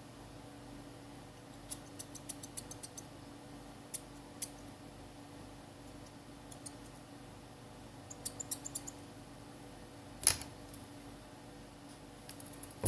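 Light clicks and small rattles from handling small tools and markers on a workbench, coming in quick clusters a few seconds apart, with one louder knock about ten seconds in. A faint steady hum runs underneath.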